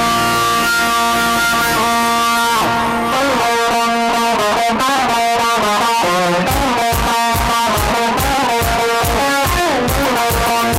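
Instrumental intro of a Telugu party song, led by guitar: held chords at first, then a quicker plucked riff, with a steady bass-drum beat coming in about six seconds in.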